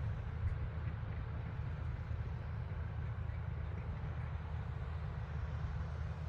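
Tractor engine running steadily under load while driving a rotary tiller, a continuous deep low rumble.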